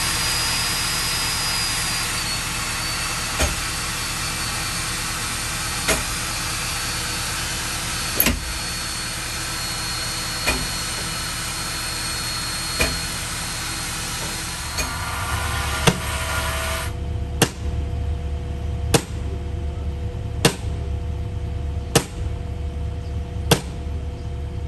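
Steady mechanical running noise with a faint high whine and a knock every couple of seconds. About two-thirds through it gives way to a sledgehammer striking the top of a vinyl seawall sheet pile to drive it into the ground: six sharp blows about a second and a half apart over a low rumble.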